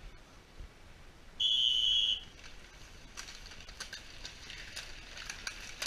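A single whistle blast lasting just under a second, followed by the quick ticking and rattling of mountain bikes riding past on a dirt track.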